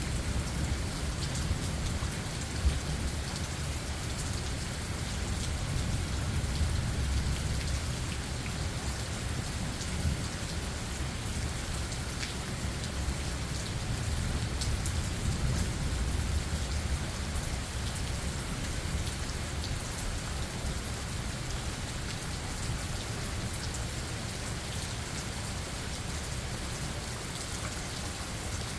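Steady rain falling, with scattered drop ticks, while thunder rumbles low through the first half and fades away later.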